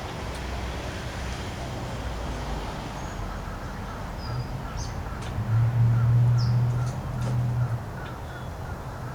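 Birds chirping and calling outdoors, with a low engine drone that swells about halfway through and stops a couple of seconds later.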